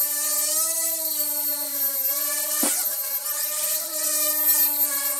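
Hubsan X4 micro quadcopter's four small motors and propellers buzzing in flight, a steady high buzz whose pitch wavers slightly as the throttle and attitude change, with one brief sharp sound about two and a half seconds in. The quad has just been repaired after a motor was ripped out, and it flies, though not in a steady hover.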